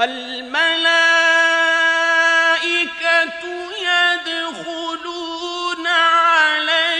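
A male Quran reciter's voice in drawn-out, melodic mujawwad-style recitation. It starts right after a pause and moves through long held notes with wavering ornaments and slides.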